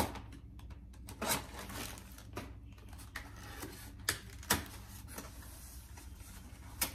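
Packaging being opened and handled by hand: irregular clicks, crinkles and short rustles of cardboard and plastic wrapping.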